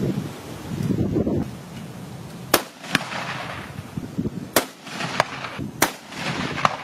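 Three loud rifle shots from a Musgrave .308 bolt-action hunting rifle, built on a Mauser VZ24 action, in the second half. Each shot is followed within about a second by a fainter sharp crack: the bullet striking a hanging steel gong.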